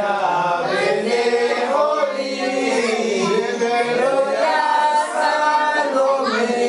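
A group of voices singing a song together unaccompanied, the notes held and gliding in unison.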